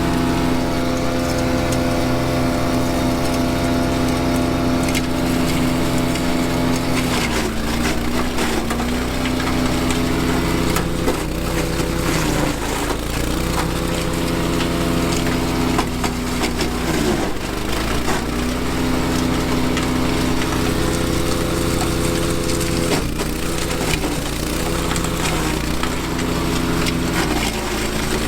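Honda-engined wood chipper shredding branches: the engine runs steadily and its pitch sags and recovers several times as it labours under the load of branches fed in, over a constant crackle of splintering wood.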